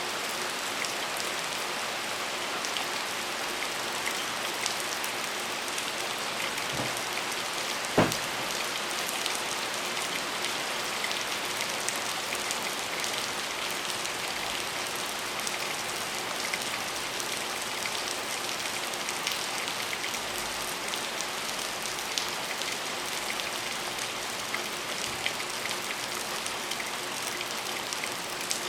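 Steady rain falling on a hard surface, a dense hiss of many small drop ticks. One sharp tap about eight seconds in stands out above the rest.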